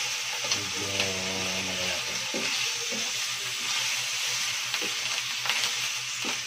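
Pork cubes browning in a little oil in a nonstick frying pan: a steady sizzle, with the spatula clicking and scraping against the pan now and then as the pieces are stirred and turned.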